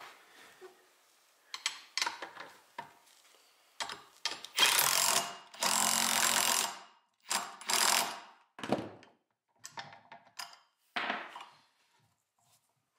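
Cordless impact driver with a socket running a lock nut down a bolt through a steel square tube, hammering in two long bursts near the middle, then shorter bursts as the nut seats tight. A few light metal clicks come before it as the socket goes onto the nut.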